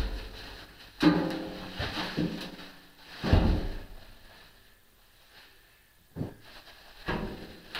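Four clanks and bangs, each ringing briefly with a metallic tone, as lathe parts and crate pieces are handled during uncrating. The two loudest come about a second in and about three seconds in; two lighter knocks come near the end.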